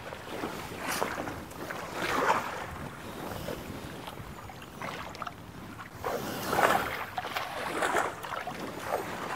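Shallow pond water sloshing and splashing as people wade through it, in irregular swishes, the strongest about six and a half seconds in.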